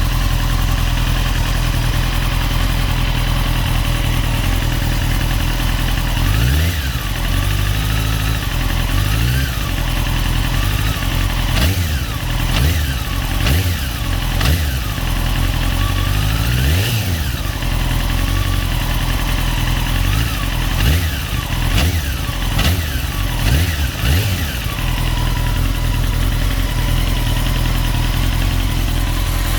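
2002 Honda CBR954RR's inline-four engine idling, with a metallic clicking/ticking, and blipped many times from about six seconds in until near the end, the pitch rising and falling with each rev. On the revs a metallic crackling like grinding gears comes in, which the owner suspects may come from the clutch or the cam chain tensioner.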